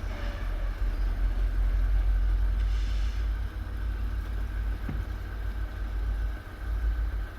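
Train passing with a steady low rumble and wind buffeting the microphone, with a faint steady high whine over it, right after its horn has cut off.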